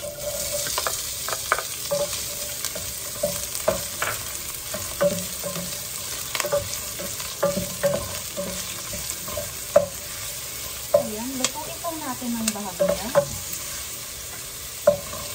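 Diced onion sizzling as it hits hot olive oil in a stainless steel pot, the sizzle starting as the onion goes in. A wooden spoon stirs it, knocking against the pot's side over and over.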